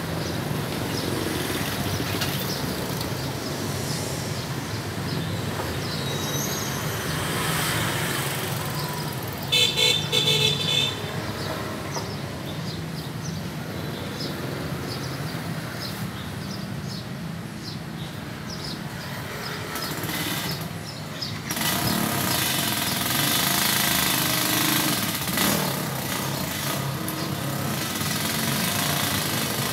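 Street traffic with motorcycles running. A vehicle horn honks briefly about ten seconds in, and the traffic grows louder after about twenty seconds.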